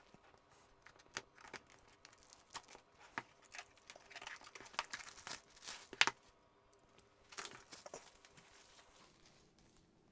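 Clear plastic shrink wrap being torn and crumpled off a cardboard kit box: an irregular run of crackles and rustles, busiest from about four to eight seconds in.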